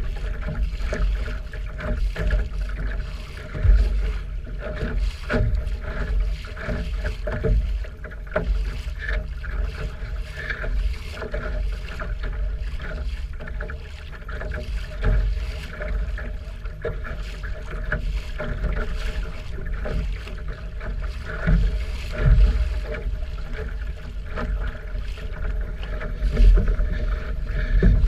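Water rushing and splashing irregularly along the hull of a Mellonseed skiff under sail, with wind buffeting the microphone as a low rumble.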